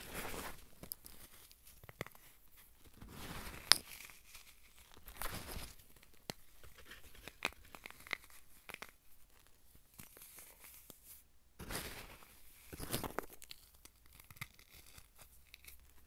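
Fingers crushing and crumbling dry, pastel-dyed powder clumps, in soft crunchy bursts with scattered small crackles. One sharp crack comes a little under four seconds in, and a longer run of crunching comes near twelve to thirteen seconds.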